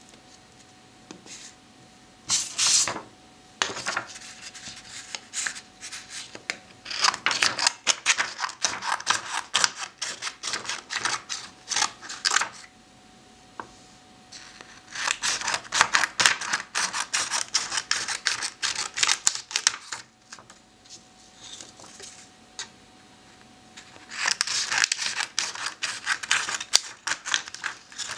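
Scissors cutting printed photo paper in runs of quick, crisp snips: a short run early, then three longer runs with pauses between.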